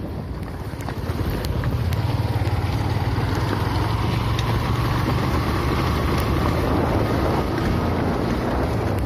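Motorcycle engine running steadily while riding over a gravel track, with wind buffeting the microphone and a few scattered clicks.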